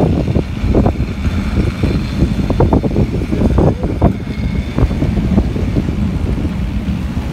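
Car of the Lynton & Lynmouth Cliff Railway, a water-balanced funicular, running down its steep track: a steady rumble with frequent knocks and clatter from the wheels on the rails, and wind buffeting the microphone.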